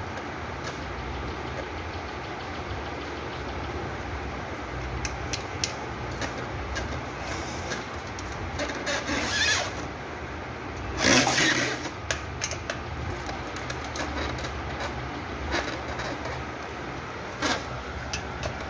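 Aluminium ceiling-fan blade and screws being handled against the fan motor's metal housing: scattered small clicks and taps, with a louder burst of handling noise lasting about a second partway through. A steady low rumble runs underneath.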